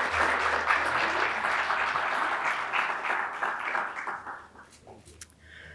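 Audience applauding, a dense patter of many hands clapping that fades away about four and a half seconds in.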